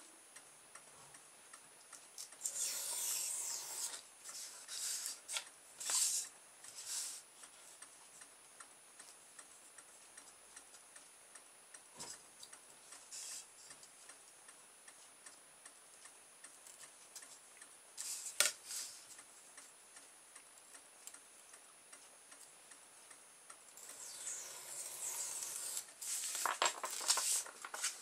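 Hobby knife scoring through a polystyrene foam pizza tray along a steel ruler, in short scraping strokes. Also two sharp taps, and near the end a longer spell of foam scraping and rubbing as the cut strip is handled.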